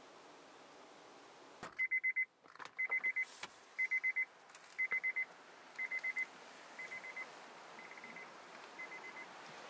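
Electronic beeper sounding in quick groups of four high beeps, about one group a second, starting about two seconds in and fading out over the last few groups.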